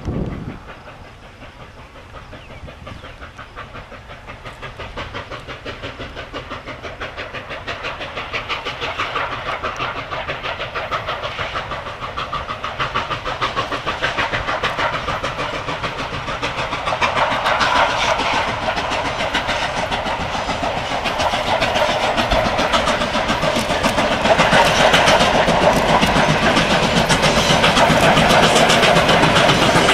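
Steam train approaching, growing steadily louder throughout, with a fast, even beat. A short knock sounds at the very start.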